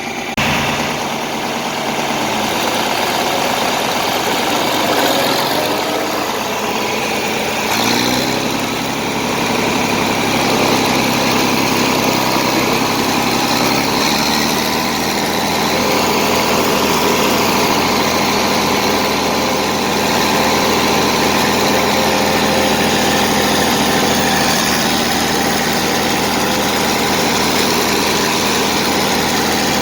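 Massey Ferguson tractor engine running steadily, its note shifting about eight seconds in and again around fourteen seconds.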